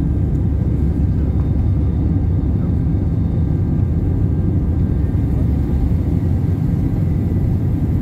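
Airbus A319-111 cabin noise during the climb after takeoff: its CFM56 engines and the rushing airflow make a steady low rumble, heard from inside the cabin over the wing.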